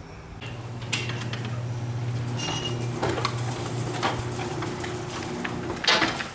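A steady low motor hum starts about half a second in and stops near the end, with scattered metallic clicks and rattles over it.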